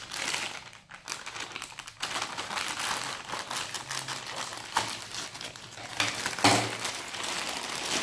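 Plastic poly mailer bag crinkling and rustling as it is cut with scissors and pulled open by hand: an irregular run of crackles with a few sharper snaps.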